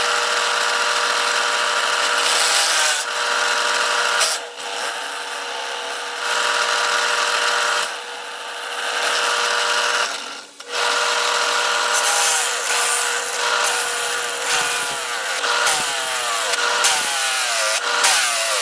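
1947 Montgomery Ward Powercraft bandsaw running with a steady hum, its blade cutting 1/4-inch aluminum plate with a loud hissing rasp. The cutting noise drops out briefly about four and ten seconds in, and a wavering whine rides over it near the end.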